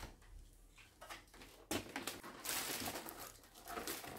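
White cardboard shipping boxes being handled: a few light knocks and taps, with a short rustle and scrape of card in the middle.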